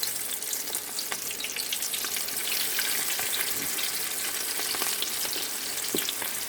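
Flour-coated chicken wings frying in hot oil in a skillet: a steady sizzle with scattered crackles and pops, building up in the first second or so as the wings go in.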